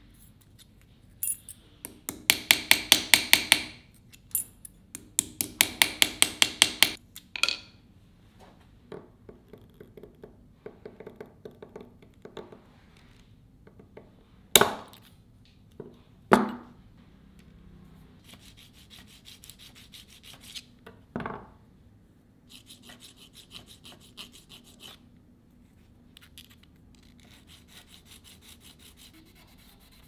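Rapid light taps of a small hammer on a thin brass plate lying on a steel block, in two quick runs of strikes. Later come two single sharp knocks and stretches of quieter rhythmic rubbing on the brass.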